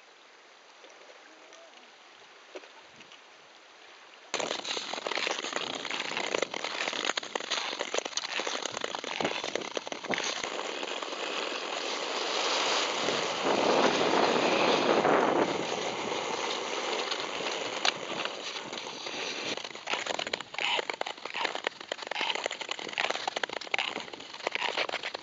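Nordic skates gliding and scraping over natural lake ice, with many sharp clicks from ski-pole tips striking the ice. The sound starts suddenly about four seconds in, after a faint quiet stretch, and is loudest in the middle.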